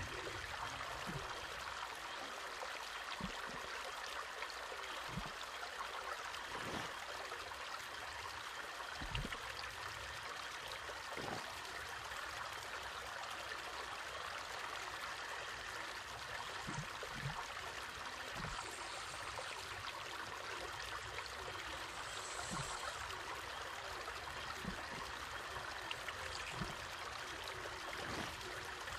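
Steady trickle of muddy water running along a small channel in the ground, with a few soft, low knocks scattered through it.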